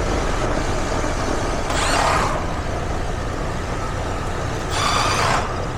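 Outdoor air-conditioning condenser unit running: a steady rush of fan air over a low hum, with two brief louder rushes about two and five seconds in.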